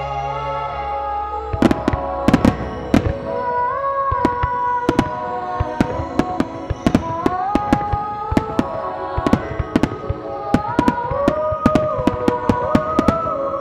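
Star mine fireworks: many shells launching and bursting in rapid succession, a dense run of sharp bangs and pops that starts about a second and a half in, over a melodic music track.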